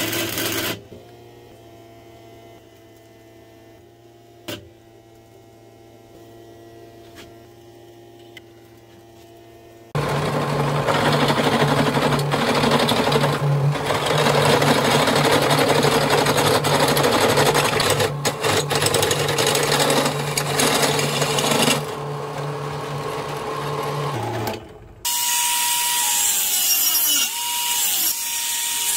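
Stick-welding arc crackling for under a second, then a machine motor running quietly with a steady hum. About ten seconds in, a drill press with a step drill bit starts cutting through steel plate, loud for some fourteen seconds. Near the end a grinder cuts into steel.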